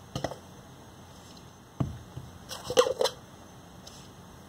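Light knocks and taps of plastic cups being handled while a sock ball is tossed into and caught in them: a few separate knocks, with a quick cluster of them about two and a half seconds in.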